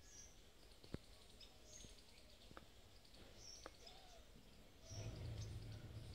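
Near silence with faint, scattered bird chirps and a few soft ticks; a low hum comes in about five seconds in.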